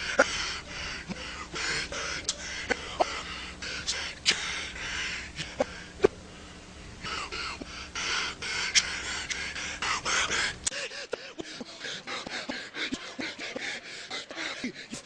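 Sharp slaps and thuds, one about six seconds in louder than the rest, over breathy gasps and a noisy background. The background changes abruptly about eleven seconds in.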